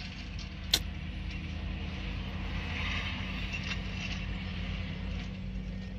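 Steady low hum of a vehicle engine running, with one sharp click about three-quarters of a second in.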